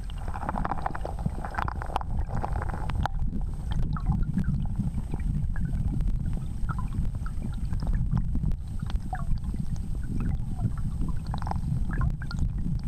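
Wind buffeting the microphone: a steady low rumble, with faint short high chirps scattered through it.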